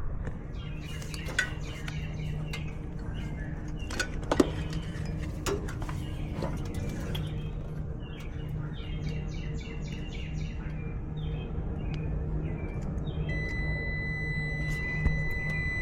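Birds chirping over a steady low hum, with a few sharp clicks of tools being handled. About 13 seconds in, a steady high electronic beep starts and holds: a multimeter's continuity tone.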